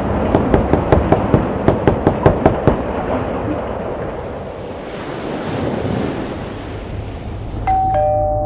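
A run of sharp, regular knocks, about four a second, over a rushing noise for the first three seconds. Near the end a two-note chime rings out, a higher tone followed by a lower one, like a doorbell ding-dong, and keeps ringing.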